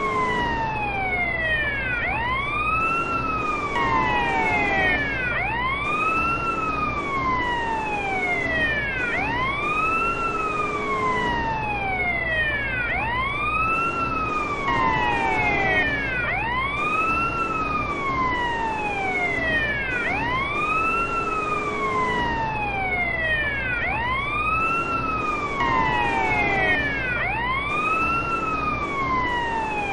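Bosnian police car siren sounding a wail, its pitch rising and falling in a smooth arch about every two seconds, repeating steadily, with a low hum underneath.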